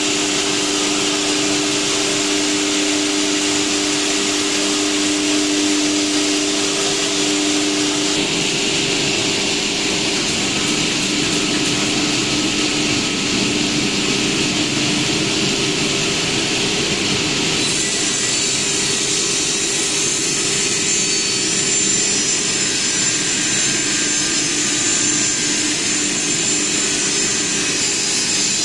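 CNC router's spindle-driven saw blade running and cutting a wood panel: a loud, steady machine whine with hiss. Its low tones change about a third of the way in, and the sound turns brighter and sharper about two-thirds through.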